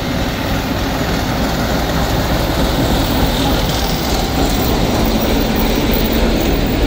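ChME3 shunting diesel locomotive passing close at low speed, its six-cylinder diesel engine running steadily under the rumble and clatter of the wheels on the rails as it hauls passenger coaches.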